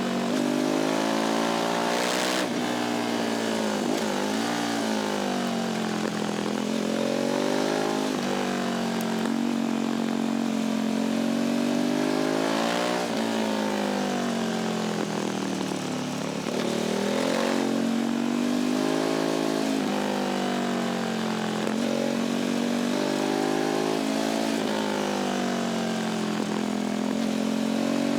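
Naked sport motorcycle's engine and exhaust under way, heard close to the exhaust: the engine note climbs and drops again and again as the bike accelerates, changes gear and comes off the throttle.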